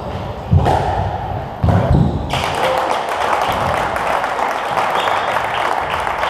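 Squash ball hits, two sharp thumps about a second apart, ending a rally. After that comes a steady spread of spectator applause.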